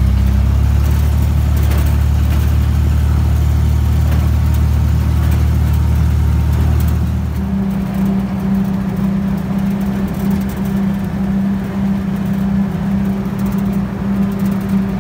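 Engine and road noise of an old military vehicle heard from inside its cab while driving: a steady low drone that changes to a higher-pitched steady drone about halfway through.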